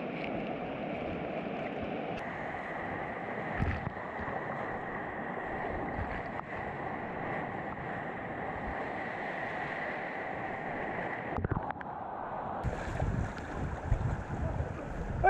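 Steady rush of river whitewater heard from a kayak, with some wind noise on the microphone.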